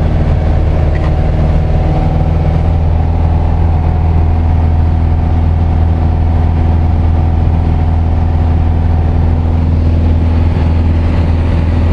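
Piper PA-28's piston engine and propeller droning steadily in cruise, heard inside the cabin: a loud, constant low hum with a stack of steady tones above it.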